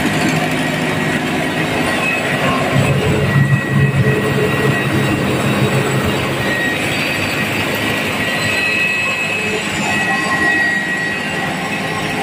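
Belt-driven rice mill running while it mills palay into rice: a loud, steady machine noise from the huller, belts and pulleys, with a faint steady whine, swelling briefly about three seconds in.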